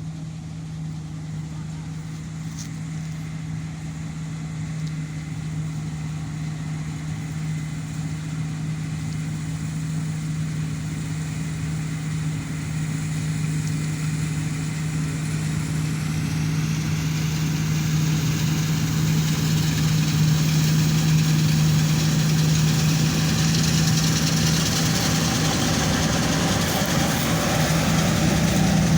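Combine harvester engine running steadily with a low hum while harvesting wheat. It grows gradually louder, and a higher hiss builds in over the second half.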